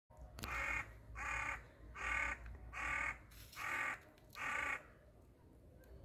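A crow cawing six times in an even series, a little faster than one caw a second, then falling silent.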